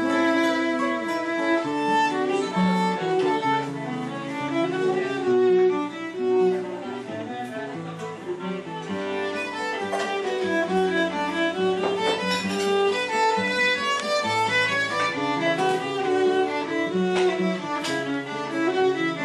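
Violin playing a melody of held notes over acoustic guitar accompaniment.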